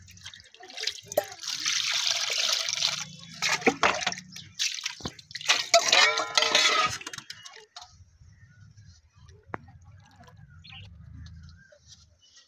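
Water splashing and dripping as small wet fish are handled and washed by hand in a steel bowl, loud and busy for the first half, then quieter. A brief pitched, voice-like sound comes about six seconds in.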